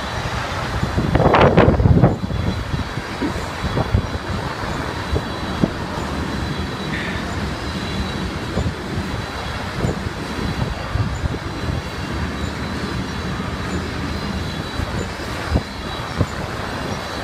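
Freight cars of a passing freight train rolling by: a steady noise of steel wheels on rail with irregular knocks, and a louder swell about a second and a half in.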